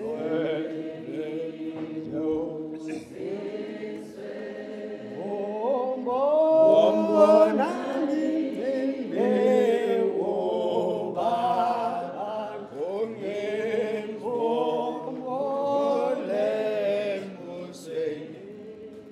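Church congregation singing a hymn chorus unaccompanied, many voices together in harmony, with long held notes; it fades near the end.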